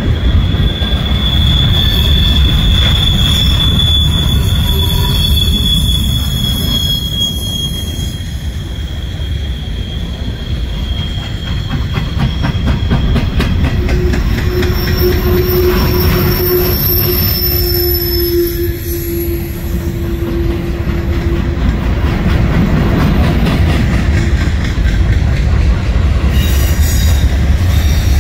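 Freight train of covered hopper cars rolling past on curved track: a steady low rumble of steel wheels on rail, with wheel squeal from the curve. One high held squeal runs through the first dozen seconds, then higher squeals and a lower drawn-out tone sound from about 14 to 21 seconds in.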